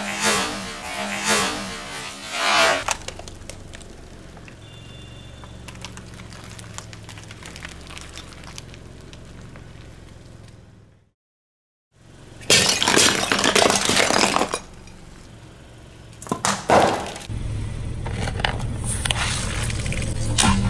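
A car tyre rolling over and crushing objects: plastic water bottles crackling and popping under its weight in the first few seconds, then, after a brief silence, another long stretch of crunching and cracking and a few short snaps. A low engine hum runs between the crushes.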